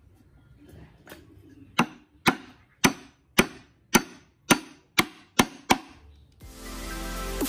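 Sharp wooden knocks: a round hardwood spindle being driven down into a hole in a wooden rail, about nine blows at roughly two a second, coming a little faster near the end. Music starts shortly before the end.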